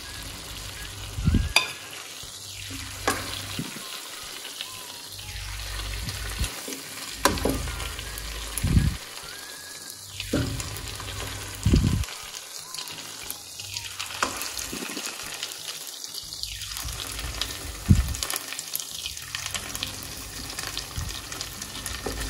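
Chicken drumsticks sizzling in a frying pan, with the sharp clink of metal tongs against the pan and plate about ten times as pieces are lifted out.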